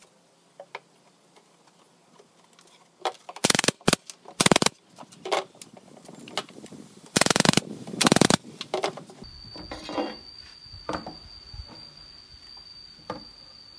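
Pneumatic nail gun firing four times, in two pairs a few seconds apart, each a sharp bang with a hiss of air as nails are driven into the wooden frame's corners. Lighter knocks of boards being handled come in between, and a thin steady high whine runs through the last few seconds.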